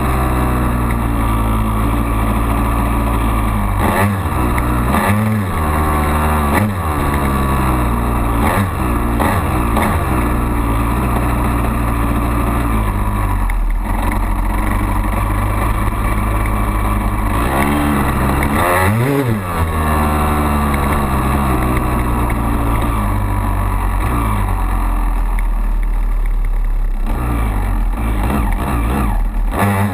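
2002 Honda CR250R's two-stroke single-cylinder engine running under way, its pitch climbing and falling repeatedly as the throttle is worked and gears change, with one big rev up and back down a little past halfway.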